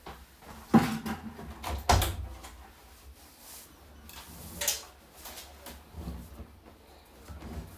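Several sharp knocks and clatters of household handling, the loudest about a second in, another at two seconds and one near five seconds.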